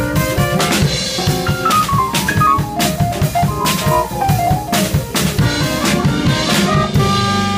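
Live small jazz band: trumpet and saxophone play running melodic lines over a busy drum kit. About seven seconds in the drums stop and held notes ring on.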